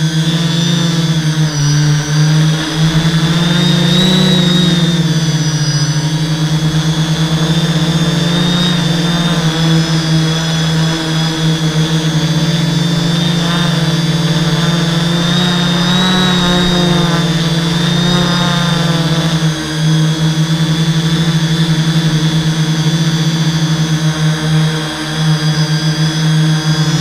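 Hexacopter's six brushless motors and 11x5.5 propellers buzzing steadily, heard up close from the onboard camera, with a high whine that rises and falls a few times.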